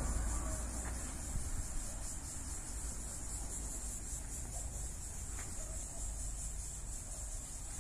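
Steady, high-pitched insect chirring, with a low rumble of outdoor ambience underneath.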